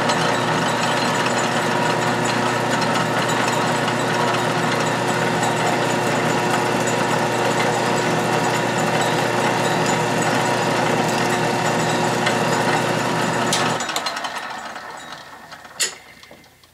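A 12-inch Atlas/Craftsman lathe runs under power on the final pass of an internal threading cut: a steady machine sound of motor and gear train. About 14 seconds in it is switched off and winds down, with a single sharp click near the end.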